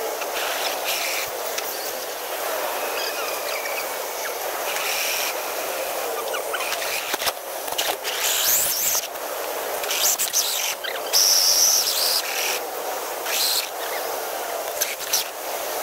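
Small electric motor and gearbox of a radio-controlled scale crawler whining as it drives, the pitch wavering with the throttle, with scrapes and crunches of its tyres on the trail.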